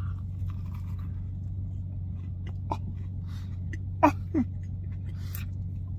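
A man chewing a mouthful of crispy fried chicken sandwich, with faint wet crunches and a few brief murmurs of enjoyment about three and four seconds in, over the steady low hum of the car he sits in.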